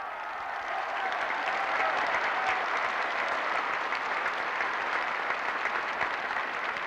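A large crowd applauding, swelling over the first second and then holding steady.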